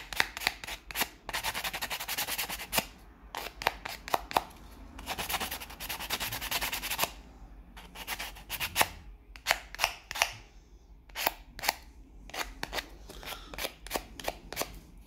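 A small plastic part being roughened by hand before gluing. There are two stretches of rubbing, one a little over a second in and one in the middle, with many sharp clicks and knocks from the part being handled and set down.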